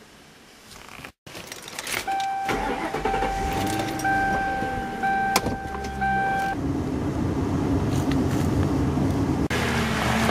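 A Lincoln Town Car's warning chime sounding as a steady tone, broken about once a second, while the engine cranks and starts; the chime stops about six and a half seconds in and the engine keeps running.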